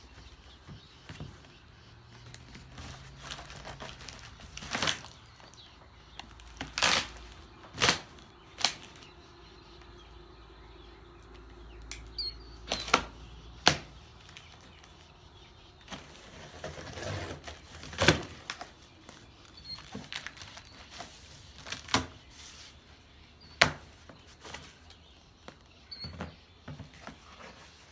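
Cardboard boxes being opened and handled: tape torn, flaps pulled back and rustled, with about nine sharp knocks and thuds scattered through.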